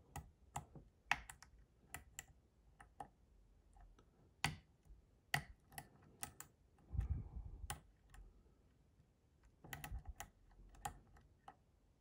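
Faint, irregular clicking and tapping of a dimple pick and tension tool working the pins inside a Lathams 6-pin brass dimple lock cylinder, while the lock is being picked clockwise toward a set. A duller bump about seven seconds in.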